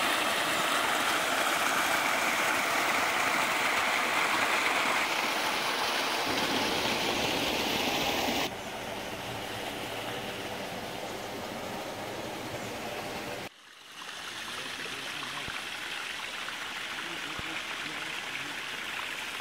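Water gushing steadily from a wooden chute into a round stone carpet-washing pool. About eight and a half seconds in it drops to a quieter, steady rush of running water.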